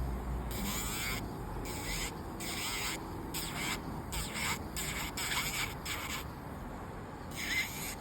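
Electric nail drill filing acrylic nails: a high grinding whine in short repeated passes, each under a second, as the bit is touched to the nail and lifted off, with a longer pause shortly before the end.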